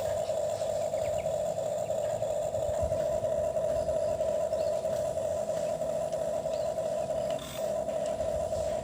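Steady high motor whine from a toy excavator, one unchanging pitch, with a brief break about seven and a half seconds in.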